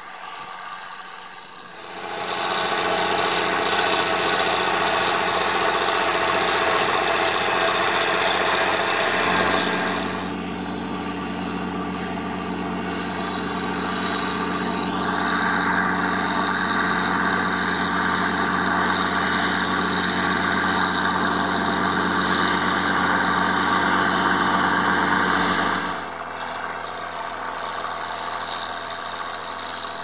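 Massey Ferguson 1200's Perkins six-cylinder diesel engine running hard while ploughing. It gets loud about two seconds in and drops back near the end, with the engine note rising about halfway through.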